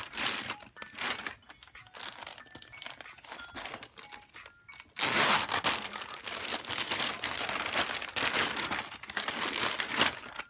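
Shipping packaging crinkling and being torn open by hand: scattered crackles at first, then from about halfway a denser, louder spell of rustling and tearing.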